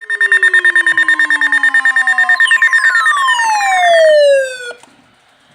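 Electronic alarm tones: a rapidly pulsing high tone, about seven pulses a second, with falling siren-like sweeps laid over it. It stops abruptly after about four and a half seconds.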